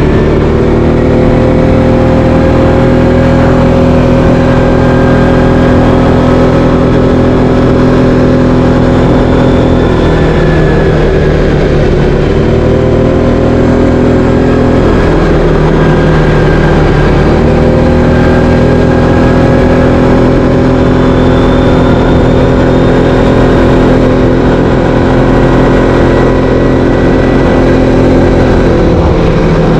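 Linhai 500 ATV's single-cylinder engine running steadily as it is ridden. The engine note drops briefly twice, about ten and fifteen seconds in, then rises again.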